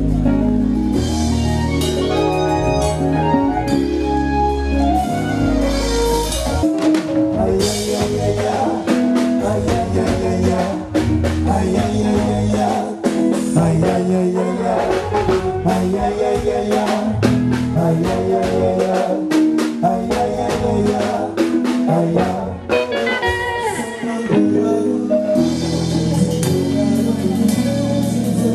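Live band music played through a stage sound system during a sound check, with a drum kit keeping a steady beat.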